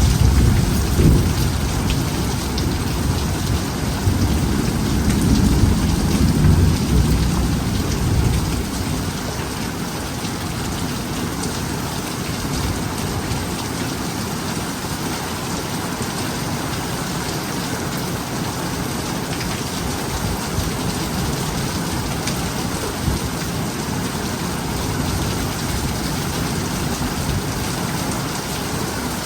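Heavy rain falling steadily as an even hiss, with a long rumble of thunder over the first eight seconds or so that dies away.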